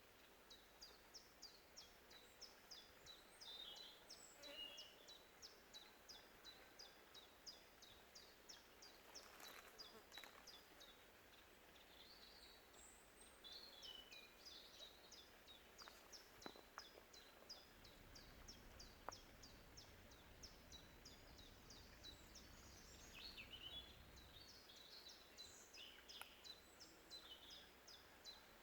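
Faint natural ambience of birds and insects: a steady train of short, high chirps at about three a second, with bursts of warbling bird calls over it now and then.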